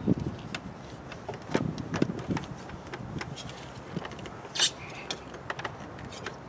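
Irregular knocks, taps and creaks as an old RV window frame is pried and pushed loose from its glued-in sealant, with a brief sharp rasp a little past the middle as the loudest sound.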